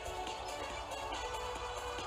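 Background music playing steadily.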